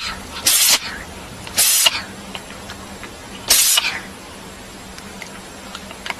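A cat sneezing three times: short, sharp sneezes, the first two about a second apart and the third two seconds later.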